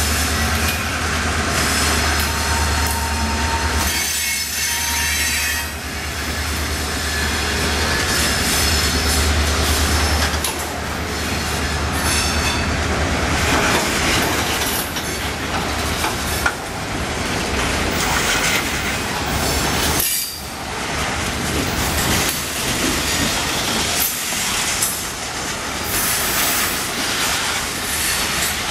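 Freight cars of a South Shore Line train rolling past close by: steady wheel-on-rail noise with repeated clicks over rail joints and a high wheel squeal that dies away about twelve seconds in. A low rumble underneath eases about ten seconds in.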